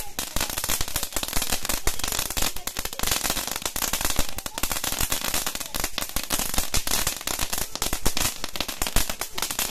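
Lollipop firecracker burning on its handheld stick, bursting in a continuous rapid crackle of small pops.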